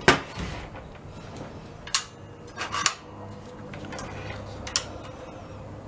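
Handling a new XU1 circular saw: a few separate sharp clacks and knocks, the loudest just after the start and others about two, three and almost five seconds in, over a steady low hum.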